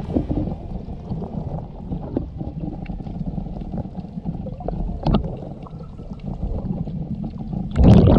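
Muffled water sound picked up by an action camera held underwater: a low, churning slosh and gurgle with a few faint clicks, swelling into a louder rush of water near the end.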